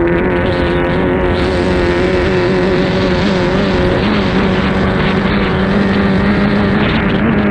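Formula 2500 racing hydroplane's engine running flat out at a steady pitch, heard from on board the boat over a rush of wind and water; the pitch shifts slightly about four seconds in.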